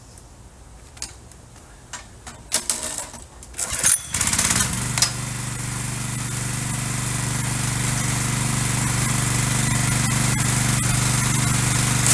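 Small gasoline engine of a pressure washer: a few knocks and rattles, then the engine starts about four seconds in and runs steadily.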